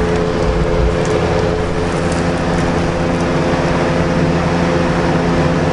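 Steady mechanical hum of a running machine: an even rushing noise with several steady low tones that do not change.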